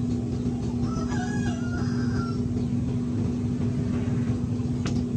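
A rooster crowing once, about a second in, in a few held, stepped notes lasting about a second and a half, over a steady low hum and rumble. A sharp click sounds near the end.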